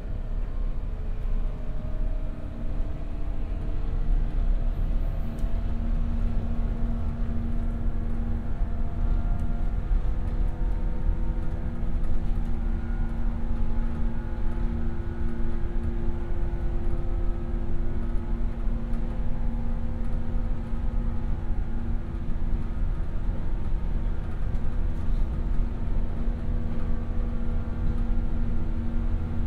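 Inside a JR 117-series electric train running at speed: a steady rumble of wheels on rails with the hum of the traction motors. The motor tones rise gently in pitch over the first several seconds, then hold steady.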